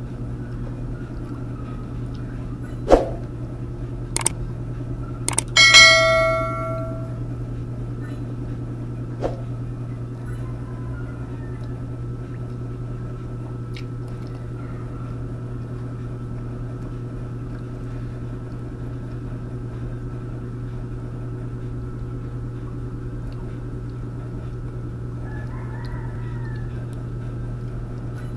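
Dishes clinking a few times in the first seven seconds, the last clink ringing for about a second, over a steady low hum. A rooster crows faintly near the start and again near the end.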